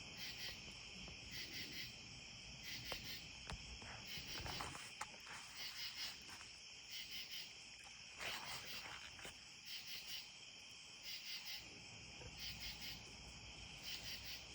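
Crickets chirping in short, evenly repeated pulses, faint and continuous, with a few soft clicks mixed in.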